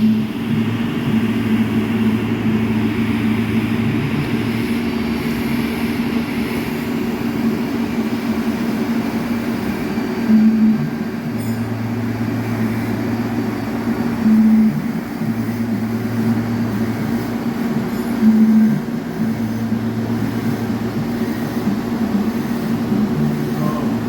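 TIG welding arc buzzing and hissing steadily, its low hum dropping in and out for a few seconds at a time, with short louder swells about every four seconds.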